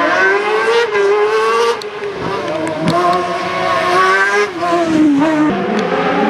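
Race car engine at full throttle through a slalom course: the pitch climbs, drops sharply about two seconds in as the driver lifts or changes gear, climbs again, then falls back twice near the end.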